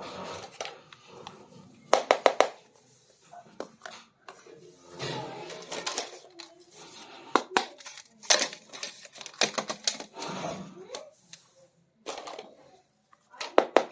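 Small plastic toy kitchen pieces being handled, clicking and clattering against each other in quick clusters about two seconds in, around seven to eight seconds in and near the end, with softer rustling in between.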